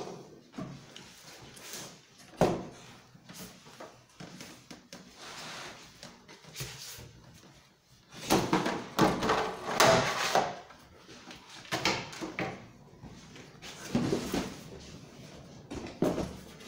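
Cardboard packaging being handled: flaps folded and scraped, a few sharp knocks, and a longer, louder stretch of rustling and scraping about halfway through as a chainsaw is slid out of its box onto a wooden workbench.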